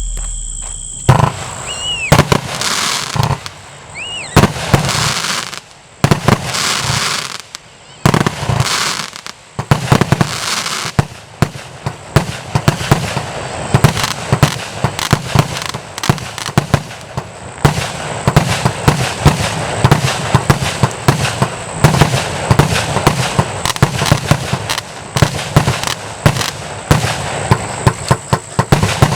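The 'Sound of Thunder' firework going off: about a second in it starts with a series of hissing bursts and a couple of short whistles. From about ten seconds in it becomes a dense, rapid string of loud bangs and crackles.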